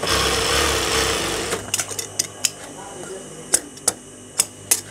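Sewing machine running briefly as it stitches a seam, stopping after about a second and a half. Several sharp clicks and taps follow as the cloth is handled and repositioned.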